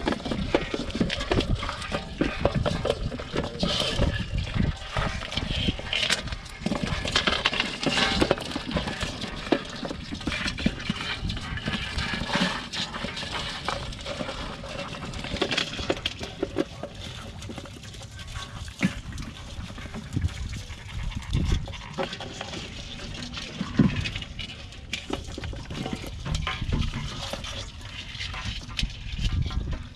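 Irregular wet clicks, knocks and splashing as crabs, apple snails and small fish are handled and sorted by hand in a plastic tub of water.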